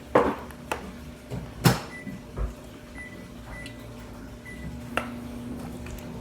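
A few light clicks and knocks of things being handled on a table, the sharpest about a second and a half in, with a dull thump just after. A steady low hum comes in near the end.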